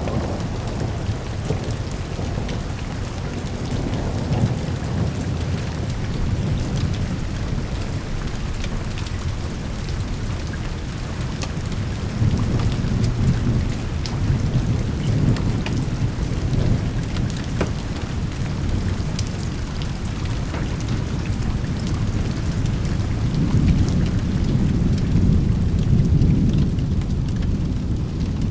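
Steady heavy rain with low rolling thunder that swells twice, about midway and again near the end, and many fine ticks of drops throughout.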